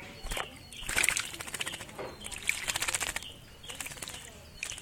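A caged laughingthrush bathing: two bouts of rapid wing-fluttering and splashing in the water, the second longer, about a second and two seconds in.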